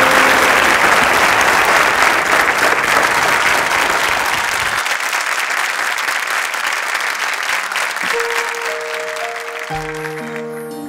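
Studio audience applauding, loudest at the start and slowly dying away. Soft held music notes come in near the end.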